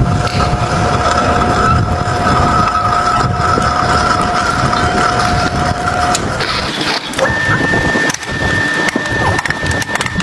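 Metal lathe running while re-cutting a bolt thread, with a steady whine over rumbling noise. The whine stops about six seconds in, and a higher tone takes over a second later, with scattered clicks.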